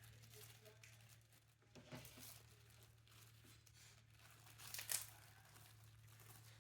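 Faint rustling and crinkling of a small handmade squishy being wrapped by hand, with a short louder crinkle about two seconds in and a sharper one near five seconds in, over a steady low hum.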